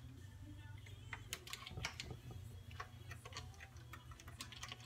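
Faint clicking of a ratchet wrench in short runs, loosening the cover bolts on a Tecumseh snow blower engine. A steady low hum lies underneath.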